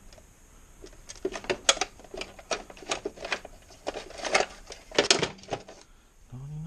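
Irregular clinking and clattering of small hard objects being handled: a quick run of sharp knocks for about five seconds, stopping near the end.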